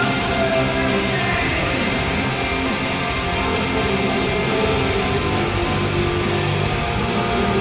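Hard-rock goal song with electric guitar, playing on without a break.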